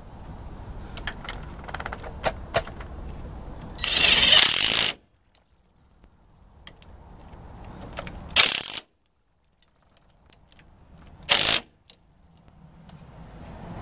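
Cordless impact tool running nuts down onto the axle retainer and backing-plate bolts of a 7.25-inch Mopar rear axle. It happens three times: each run builds up, then the tool hammers loudly for a moment as the nut seats and stops abruptly. The first hammering lasts about a second and the later two are shorter.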